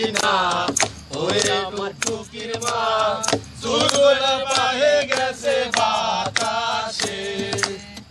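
Group of men singing together in chorus to a strummed acoustic guitar, with sharp strokes about twice a second.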